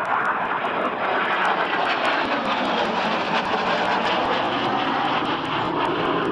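Harrier GR7's single Rolls-Royce Pegasus jet engine, a loud, steady jet noise as the aircraft flies its display.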